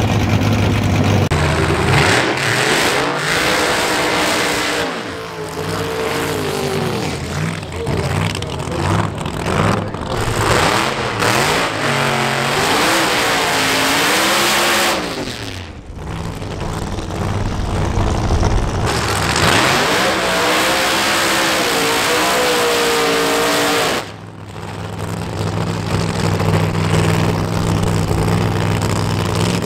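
Drag-car engines revving hard through burnouts, the engine note repeatedly climbing and falling. A steadier, lumpy idle is heard at the start and again for the last few seconds.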